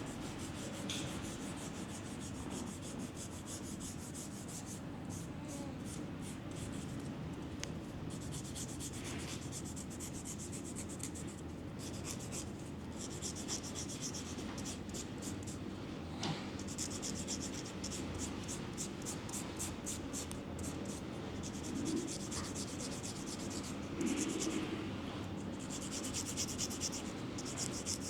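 Close-up scraping strokes in quick runs of a second or two, with short pauses between them.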